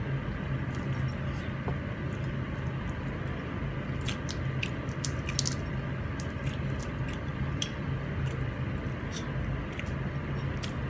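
Cooked prawn shells crackling as they are peeled by hand, with chewing: scattered small clicks, thickest about halfway through, over a steady low hum.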